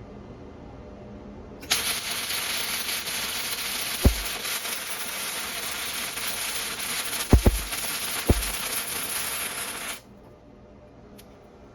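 Flux-core arc welding with .035 stainless steel flux-core wire at 70 amps on DC electrode negative, the welder later judging the heat too hot, nearly burning through. The arc strikes about two seconds in and gives a steady crackling sizzle for about eight seconds, with a few sharp pops in the second half, then cuts off suddenly.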